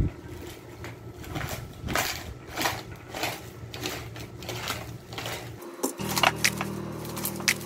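Plastic wrapping crinkling and rustling in quick irregular crackles as it is slit with a utility knife and pulled apart by hand. Low steady tones come in about six seconds in.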